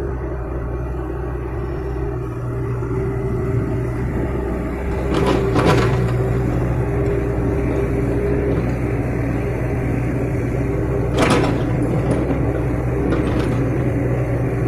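Excavator's diesel engine running steadily under load, with two brief louder rushes of noise about five and eleven seconds in.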